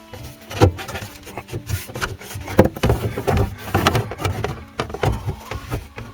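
Irregular knocks, clicks and rubbing of hands and tools handling kitchen faucet parts, several sharp knocks a second in uneven bursts.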